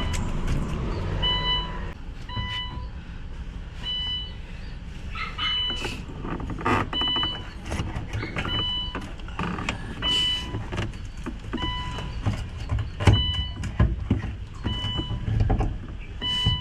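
An electronic warning beep repeating about every second and a half, mixed with sharp metal clinks and knocks from work on the car's new fuel pump and filter.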